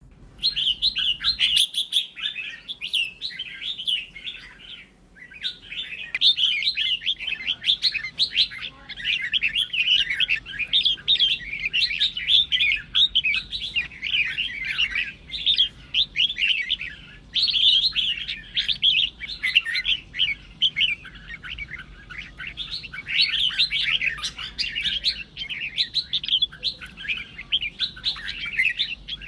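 Red-whiskered bulbul singing fast, dense, chattering song phrases almost without a break, with brief pauses about five seconds in and again past halfway. It is a fierce, rivalrous song of the kind used to provoke other bulbuls into singing back.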